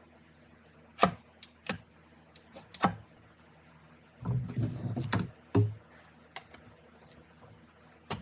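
Metal transmission parts of a transfer case clicking and clunking as they are handled and fitted during assembly: a few separate sharp clicks, then a busier run of knocks and clunks about four to six seconds in.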